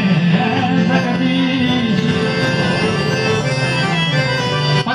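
Man singing a Rajasthani devotional song (a heli) into a microphone, with held, bending notes over a harmonium accompaniment, loud through a PA system.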